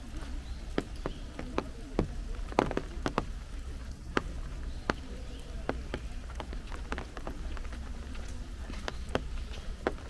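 Rain: large drops tapping irregularly close by, a few a second, over a steady low rumble.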